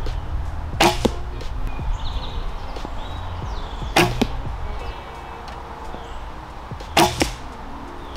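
Three shots from a traditional bow, about three seconds apart. Each is a sharp snap of the bowstring on release, followed a fraction of a second later by the thud of the arrow striking the block target.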